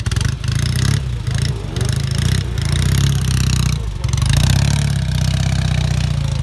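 Vintage motorcycle engine running, its revs rising and dropping back a few times.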